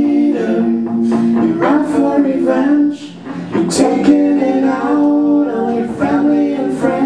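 Live garage rock band playing a passage without sung words, guitar chords to the fore and changing every second or two.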